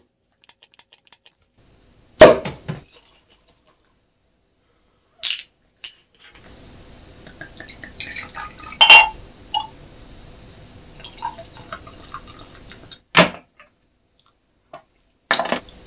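Tabletop drink-making sounds: a few sharp knocks and clinks of containers and glassware, soju poured from a bottle into a glass about eight seconds in, and a sharp clink near the end as a metal spoon strikes the glass while stirring somaek (soju mixed into beer).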